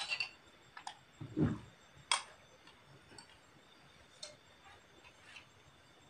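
Spoons and plates clinking and tapping faintly in a scatter of light clicks while food is served and eaten, with a dull thump about one and a half seconds in and a sharper clink just after.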